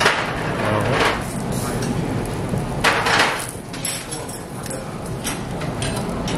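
Pork sizzling on a tabletop grill with clinks of cutlery and dishes, the sizzle swelling louder about a second in and again about three seconds in.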